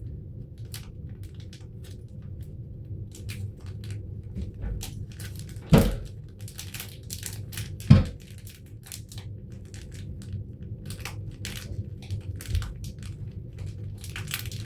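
Plastic packaging of a sealed pack of disposable gloves crinkling and crackling as it is twisted and pulled at in an effort to tear it open, with two sharp thumps about six and eight seconds in. A steady low hum runs underneath.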